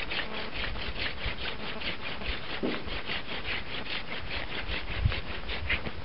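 Bushcraft hand drill: palms rubbing a wooden spindle back and forth so its tip grinds in the hearth board, a steady rhythmic rasp of about five strokes a second that stops shortly before the end.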